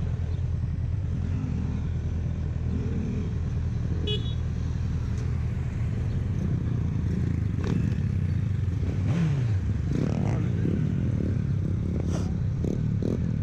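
Motorcycle engine running steadily on the move, with an engine note that drops in pitch about nine seconds in.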